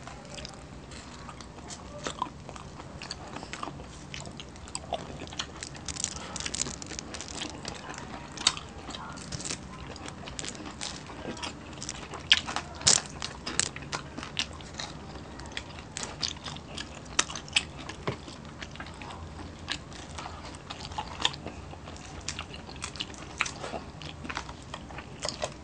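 Close-up chewing and biting of crispy fried food, fried tilapia and crispy sisig, eaten by hand, with frequent sharp, irregular crunches.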